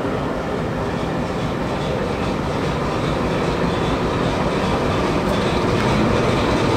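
A Class 08 diesel shunter running as it hauls passenger coaches away from the platform, its engine mixed with the sound of the coaches rolling along the track.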